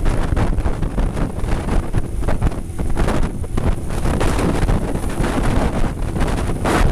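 Heavy wind buffeting on the microphone of a camera riding on a Suzuki B-King motorcycle at road speed, fluctuating constantly. The bike's inline-four engine runs underneath, mostly masked by the wind.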